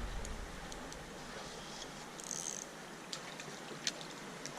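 Steady rush of creek water, with a few small clicks and a brief high-pitched sound about halfway.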